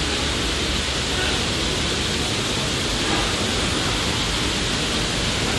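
Polishing machines with cloth buffing wheels running, a steady even rushing noise with no change in level.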